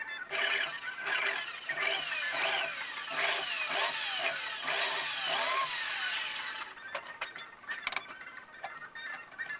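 Electric drill working into a chipboard beam for about six seconds, running in pulses with its motor whine falling again and again, then stopping. Afterwards, faint clicks of small parts being handled.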